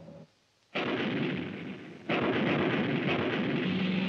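Cartoon grenade explosion sound effects: a sudden blast about a second in, then a second, louder blast about two seconds in whose noise carries on.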